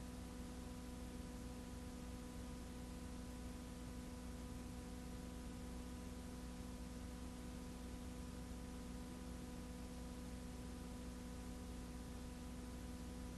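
Faint steady electrical hum made of several fixed tones, over an even hiss. There is no audible music or speech.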